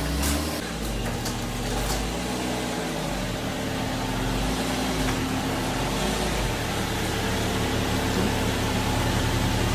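Car engine running, its pitch shifting over the first few seconds and then holding steady.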